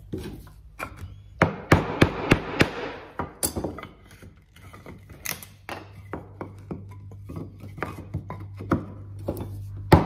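Irregular sharp clacks and knocks of thin wooden strips and a chisel being worked and set down on a wooden workbench, over a steady low hum.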